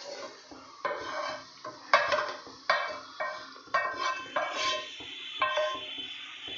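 A spoon knocking and scraping against a nonstick frying pan as crumbled paneer is added to the thickened milk and sugar and stirred in, with a sharp knock about once a second.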